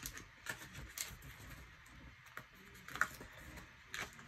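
Light scattered clicks and taps of paper being handled: a hand lifting and flipping the sticker sheets of a sticker book, with sharper ticks about three and four seconds in.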